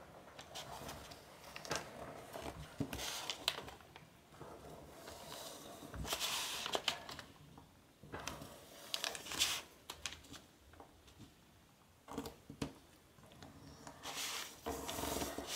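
Sheet of origami paper rustling and crinkling as hands fold over and crease its edge, in short bursts every few seconds.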